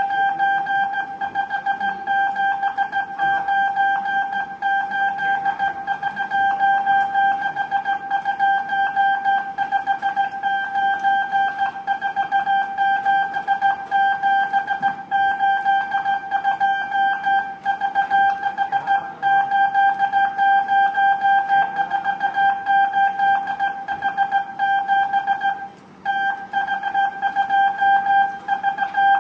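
Morse code sidetone near 800 Hz, hand-keyed on and off in quick dots and dashes, sending numeral code groups in a radiotelegraph operator's sending test. The keying breaks off briefly about 26 seconds in.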